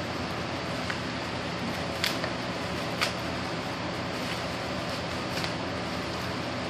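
A few sharp crackles and clicks of plastic bubble wrap being handled, the loudest about two and three seconds in, over a steady room hum and hiss.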